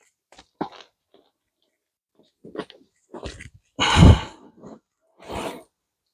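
Digging through soil in a potato pot: short scattered crunching scrapes, with a louder dull thump about four seconds in.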